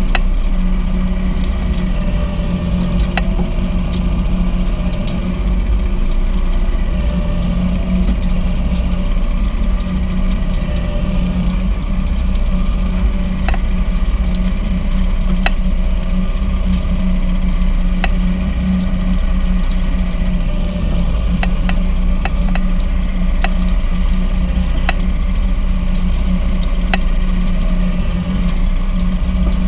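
Tractor engine running steadily while hauling a Sittler compost windrow turner through a compost windrow, with scattered sharp clicks every few seconds.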